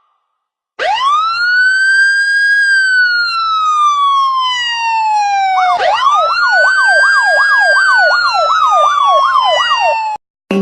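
Two girls imitating a siren with their voices. A long wail rises and slowly falls, then a second wail starts, joined by a fast up-and-down yelp at about two and a half swings a second, and both cut off near the end.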